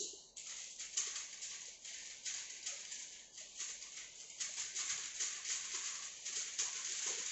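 A sheet of paper rustled and flapped by hand, a hissing rustle that surges and eases unevenly and grows louder in the second half, meant to imitate wind at the beach.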